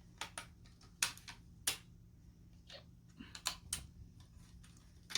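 Light, irregular clicks and taps of plastic parts on a Dyson Big Ball vacuum triggerhead as it is being taken apart by hand, with a quick cluster of clicks about three seconds in.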